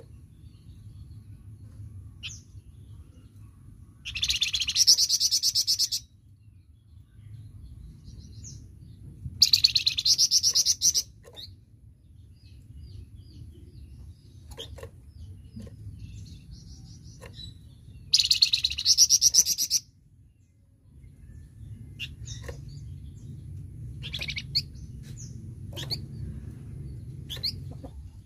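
A flamboyan songbird singing in rapid rattling 'tembakan' bursts: three loud trills of about two seconds each, with short single chirps between them, over a low steady background rumble.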